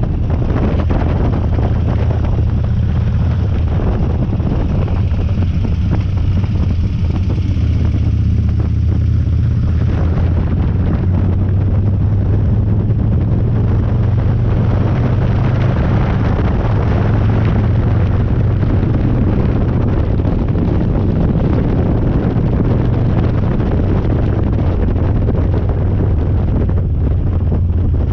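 Harley-Davidson Dyna V-twin engine running steadily under way, heard with wind noise on the microphone.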